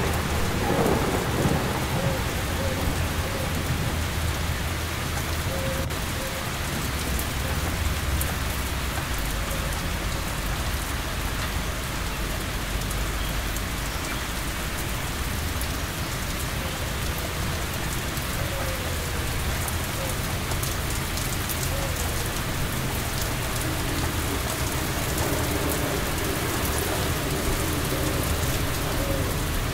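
Steady heavy rain falling, with a low rumble of thunder rolling through the first part and dying away.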